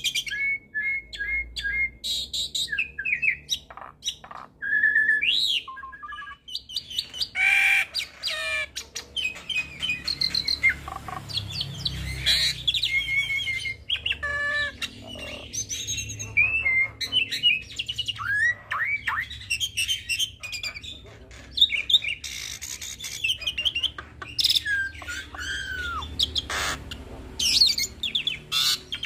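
Hybrid starling (jalak suren × jalak nias cross) singing a fast, varied song of whistles, chirps, squawks and clicks. The song is full of mixed phrases ("full isian").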